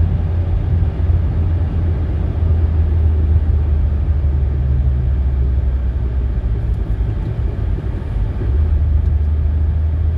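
Steady low rumble of a car driving in town traffic: engine and road noise heard from inside the car.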